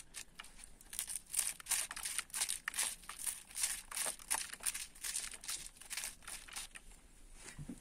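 Sunflower seeds being rubbed by hand out of a wedge of a dried sunflower head: a rapid, irregular dry crackling as the seeds snap loose and drop into a bowl of seeds. It thins out near the end.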